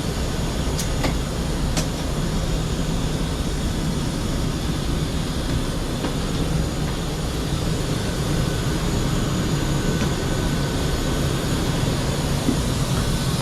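Steady low rumble inside a parked airliner's cabin during boarding, with two faint clicks in the first two seconds.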